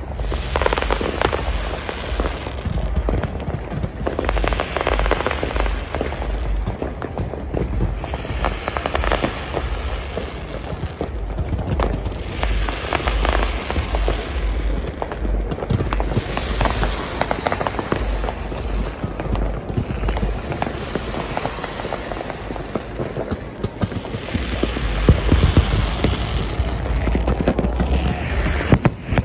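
New Year's fireworks going off continuously: a dense crackle of bangs and pops over a deep rumble, swelling in waves every few seconds and loudest a little before the end.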